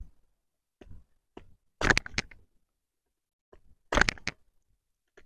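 Cold Steel Survival Edge knife blade shaving down a dry wooden stick to carve a feather stick, in a few short strokes. The two loudest strokes come about two seconds apart.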